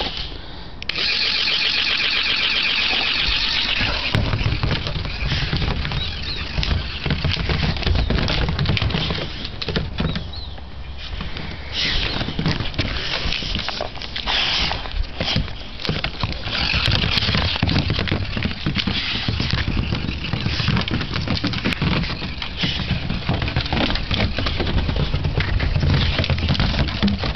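Battery-powered wiggle ball dog toy running: its motor buzzes steadily as the knobbed plastic ball rattles and bumps across wooden decking. A high warbling sound plays for the first few seconds.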